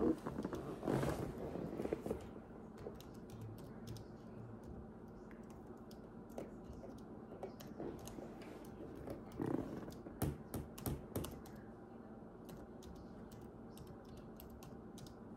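Typing on a laptop keyboard: scattered key clicks, with a quick run of keystrokes about ten seconds in.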